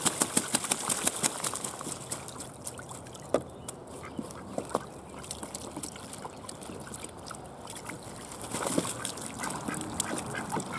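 Domestic ducks bathing in a shallow plastic wading pool: water splashing and dripping, busiest at the start, with a few quacks that come more often near the end.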